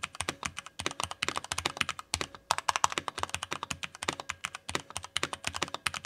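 Fast typing on a Cherry MX 8.2 TKL mechanical keyboard with linear Cherry MX Red switches: a quick, continuous run of key clacks, with a few brief gaps between words.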